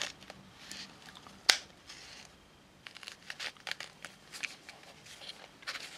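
A CR123 lithium battery being fitted by gloved fingers into a small plastic battery compartment: faint fabric rustling and small scattered clicks, with one sharp click about a second and a half in.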